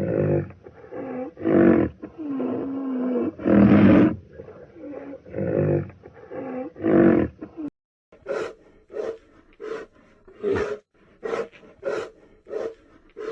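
A lion roaring and growling in a run of long, pitched calls. About eight seconds in it cuts abruptly to a dog barking repeatedly, roughly one bark every two-thirds of a second.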